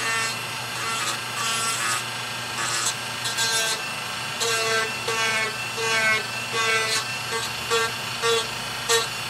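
Dremel rotary tool running steadily while a small bit grinds a seam off a carved wooden chess piece in short, repeated passes, a scraping burst about once or twice a second with the tool's note sliding at each contact.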